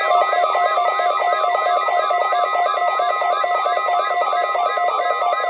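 Several electronic alarm tones sounding together: fast repeating up-sweeping chirps, about four a second, over pulsing beeps and steady tones, loud and unbroken.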